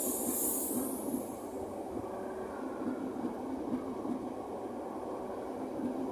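South Western Railway electric multiple unit rolling slowly along the platform. A high-pitched wheel squeal fades out after about a second, leaving a steady rumble of the wheels and running gear.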